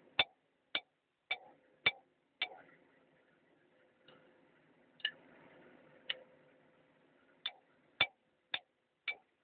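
Sharp metal clicks from a ratchet and socket being worked on the cylinder head of a Doosan excavator diesel engine: an even run of five about half a second apart, then after a pause of a couple of seconds another six.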